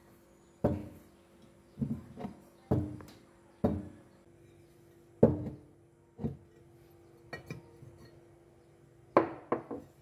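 Ceramic teapot handled on a wooden surface: about a dozen sharp knocks and clinks of china, some leaving a short ringing tone, with lighter clicks of the china lid as it is lifted off.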